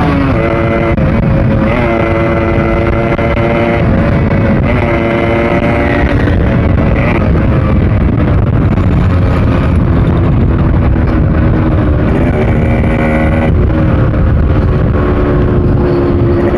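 Yamaha RX100's two-stroke single-cylinder engine running hard at speed in third gear, its note shifting in pitch several times as the throttle changes. Heavy wind rumble on the microphone.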